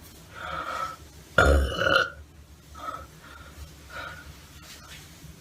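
A person burping: a softer burp, then a long, loud one about a second and a half in, followed by a few small, short burps.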